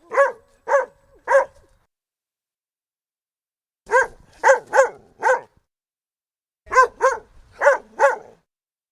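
Dalmatian barking in three short bouts: three barks, a pause of about two seconds, four barks, a shorter pause, then four more. Each bark is short and clearly pitched.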